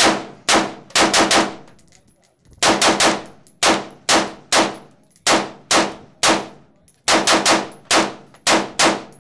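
Rapid semi-automatic fire from an AR-15-type carbine: about twenty sharp shots in quick strings, some barely a fifth of a second apart, with short pauses between the strings.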